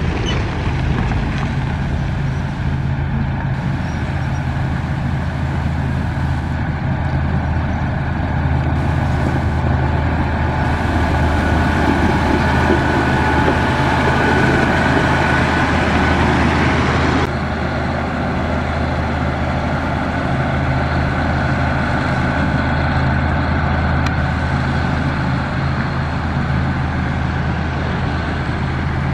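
Caterpillar 140H motor grader's diesel engine running steadily under load as it grades gravel, with a hiss of gravel under the blade and tyres that builds and then drops off sharply a little past halfway.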